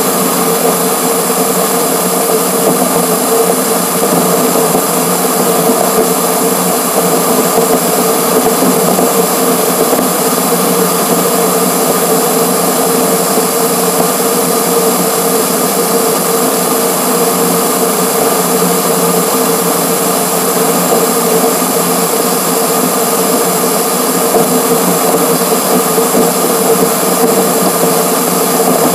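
Wind and road noise from a camera mounted on a car's front grille at highway speed, played back sped up so that it becomes a steady, high, machine-like whirring rush with a constant hum.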